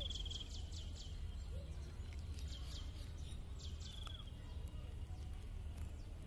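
Birds calling: several runs of quick, high, falling notes, with a thin high trill that stops just after the start, over a steady low background rumble.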